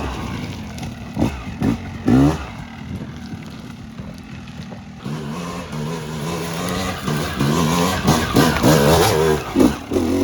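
Dirt bike engine revving in short bursts, with a quick rising rev about two seconds in, then running steadier under load as the bike climbs a steep bank.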